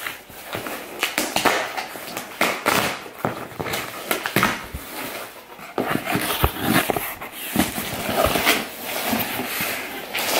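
A cardboard shipping box being opened by hand: packing tape pulled off and cardboard flaps scraping and knocking, an irregular run of scratches and taps.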